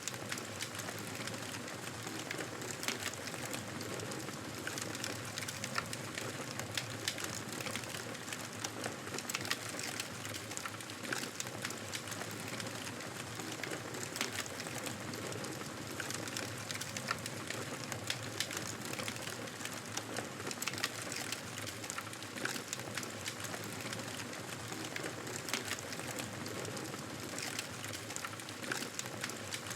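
Wood fire burning in a fireplace: a steady crackle and hiss with frequent sharp pops at irregular intervals.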